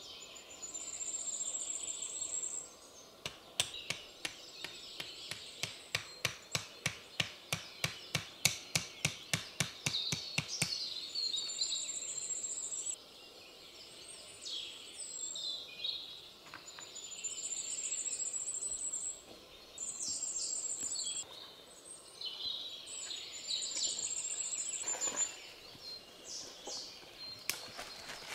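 A run of quick wooden knocks, about three a second for some seven seconds starting a few seconds in, as a wooden stake is driven in to peg down a tarp corner. A small songbird sings short high trills every few seconds.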